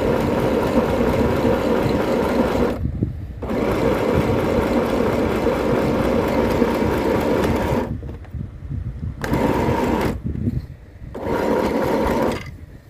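SewMighty mini portable sewing machine running at a steady speed as it stitches a straight seam. It sews in four runs with short stops between them, and the last run ends just before the end.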